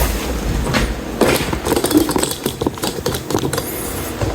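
Two screwdrivers clicking and scraping against a sink basket strainer's locknut as it is turned tight, a run of irregular metallic clicks and rattles.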